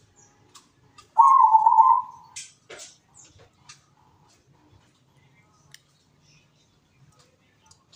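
Zebra dove (perkutut) giving one wavering coo, a little under a second long, about a second in, followed by a few faint clicks.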